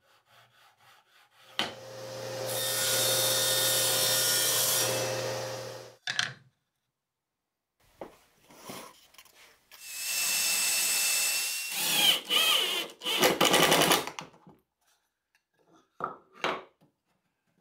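A power tool runs twice, each time for about four seconds: the first run is steady, starting with a quick ramp-up and cutting off; the second is noisier, with its pitch wavering near the end. A couple of short knocks follow near the end.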